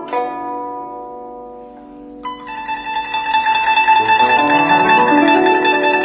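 Guzheng: a plucked note rings and fades for about two seconds, then a fast, dense passage of rapid plucking starts and grows louder, with some notes bending in pitch.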